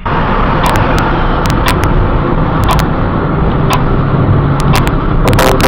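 A car driving, heard from inside the cabin through a dashcam's microphone: a steady road and engine rumble with scattered sharp clicks and rattles that come more often near the end.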